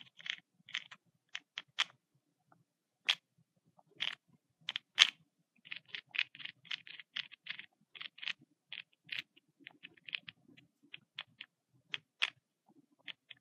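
Losi 8ight rear differential turned back and forth by hand at the outdrive: its gears click and tick in an irregular run of sharp clicks with a faint low rattle. It is shimmed as the manual specifies, which the builder found to be off and needing more shims.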